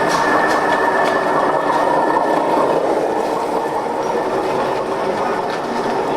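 Gauge 1 model train running along the track: a steady rolling noise with a few light clicks, and a high steady whine that fades out about two seconds in.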